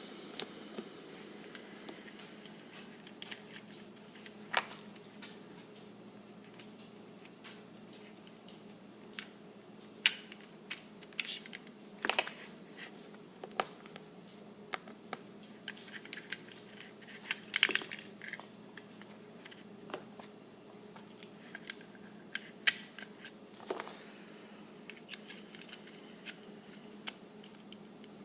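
Glock 19 pistol parts being handled during disassembly: irregular sharp clicks and light metallic taps of small parts and pins, with a short cluster of louder clicks about seventeen seconds in.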